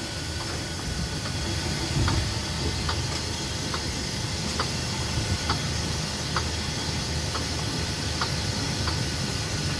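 Small children's track-ride car running along its guide track, a steady rumble with a light click about once a second.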